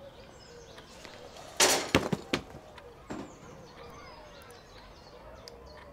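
A sudden loud burst of noise about one and a half seconds in, followed by a few sharp knocks and a second, shorter burst about three seconds in, over faint chirping in the background.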